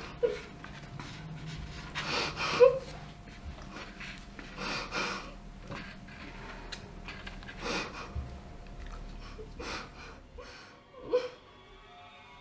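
Heavy, uneven breaths and sniffs in a small room, mixed with small clicks of a spoon against a styrofoam takeout box. Soft music comes in near the end.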